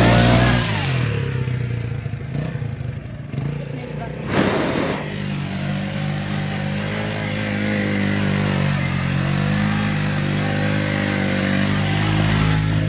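ATV (four-wheeler) engine running. It drops in pitch as it moves off near the start, then holds a steady drone, with a short rush of noise about four seconds in.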